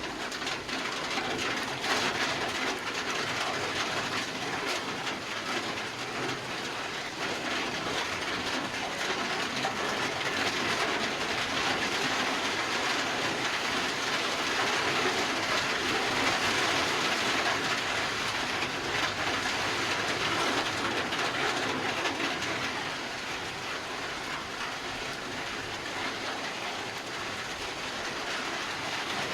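Heavy rain pouring steadily with a dense patter of drops, growing heavier in the middle and easing slightly near the end.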